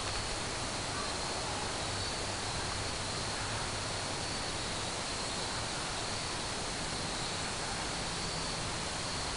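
Steady outdoor background noise: an even hiss with a faint, continuous high-pitched drone and no distinct events.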